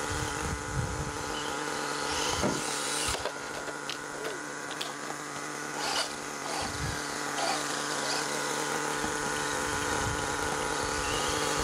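Nitro engine of an HPI Savage XL 5.9 idling steadily at standstill during its break-in tank, with the whir of a small electric RC buggy rising and falling as it drives past.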